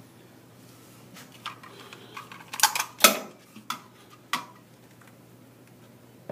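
Click-type torque wrench worked in short strokes on a primary clutch nut: a string of metal clicks and clacks over the first four seconds or so, the loudest about three seconds in, as the wrench nears its 95 foot-pound setting.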